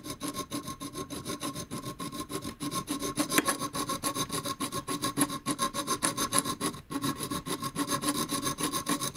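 The file on the jaws of MIG welding pliers (Welpers) rasping back and forth across copper pipe clamped in a vise, in fast, even strokes several a second, with a steady ringing note under the strokes.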